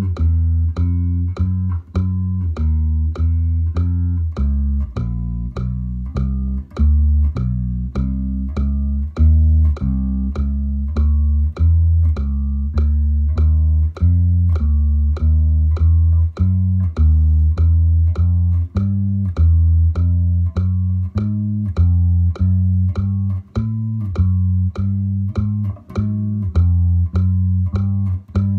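Electric bass played fingerstyle: a steady, even run of single plucked notes at about three a second. It is a fretting-hand drill using the 4-1-2-3 fingering, so the notes step by small intervals through low four-note groups.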